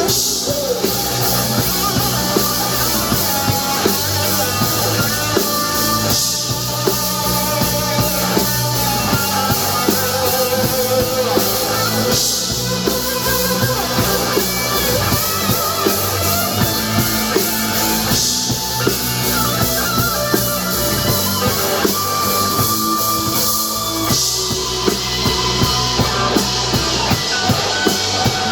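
Rock band playing live: drum kit, guitars and bass, with a cymbal crash about every six seconds and quick hi-hat-like ticking near the end.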